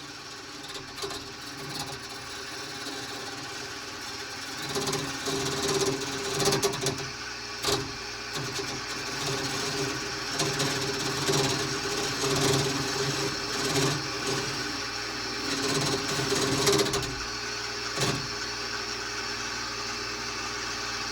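Wood lathe running with a steady motor hum while a hand-held turning tool cuts into the spinning wood blank, a rough, uneven scraping. The scraping eases off about seventeen seconds in and the hum carries on.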